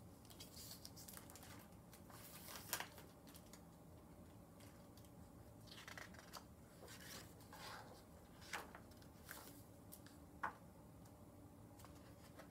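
Faint rustles and soft taps of a hardcover picture book's paper pages being turned and handled, a few brief scattered sounds over near silence.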